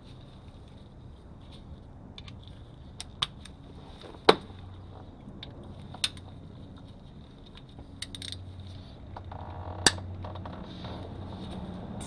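Scattered sharp metallic clinks and clicks from hand tools and bolts, the loudest about four seconds in, over a faint low hum.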